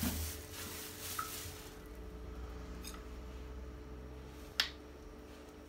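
A few light clicks, then one sharp click about four and a half seconds in, from handling a piston and connecting rod while weighing it. A faint steady low hum runs underneath.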